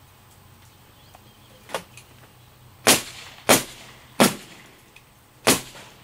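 Pneumatic nail gun firing four nails into wood, each a sharp bang with a short ring after it, spaced a little over half a second to about a second apart. A lighter knock comes first, about a second and a half in.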